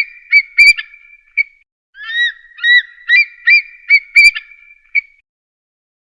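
Eagle calling: two runs of short, high piping call notes, the second run starting about two seconds in.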